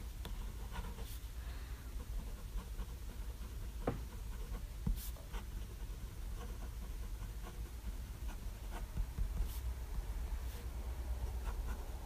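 Medium steel-free nib of a Pilot Custom 823 fountain pen scratching lightly across a Rhodia 90 gsm paper pad as cursive words are written, with scattered small ticks, over a steady low hum.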